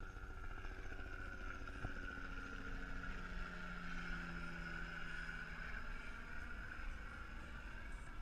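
Helicopter flying overhead: a steady, fairly faint engine and rotor sound.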